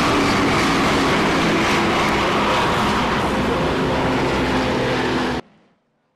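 Racing car engines running at speed on a track: a loud, steady engine drone with road and wind hiss. It cuts off suddenly near the end.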